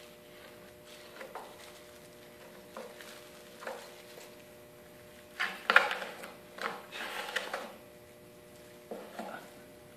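Scrap-wood spreader scraping and knocking on plywood in short, separate strokes while urethane glue is worked around a bracket, loudest in a cluster a little past the middle. A faint steady hum runs underneath.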